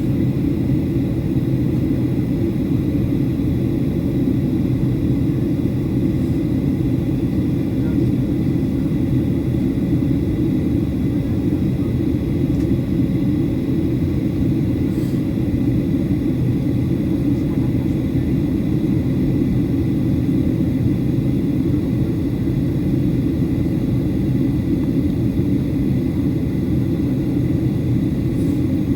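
Steady cabin noise of a Boeing 737-800 in descent: a constant low rumble of engines and airflow, with a faint steady high tone over it.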